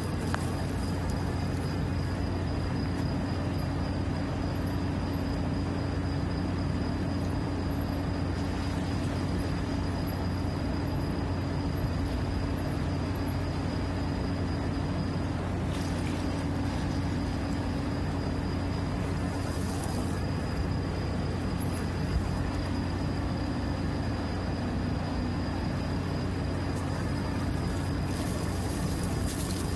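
Steady machinery drone with a constant low hum and a thin high whine, likely the running plant of a berthed ship; a few brief hisses rise over it.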